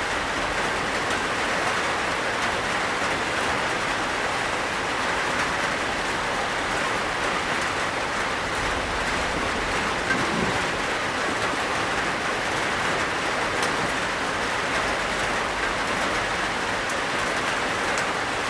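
Steady rain on a tin roof, an even hiss of drops drumming on the metal, with one sharper tap about ten seconds in.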